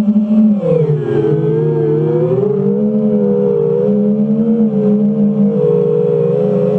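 FPV quadcopter's brushless motors and propellers whining steadily. The pitch drops about a second in as the throttle comes down, then wavers up and down with small throttle changes.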